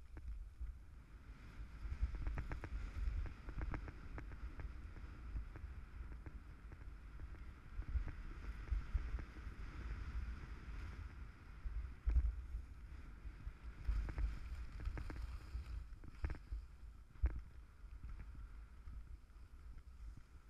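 Skis sliding and scraping over hard, tracked piste snow, a hiss that swells and fades with each turn, under a steady rumble of wind on the microphone. Sharp knocks come now and then as the skis ride over bumps, the loudest about halfway through.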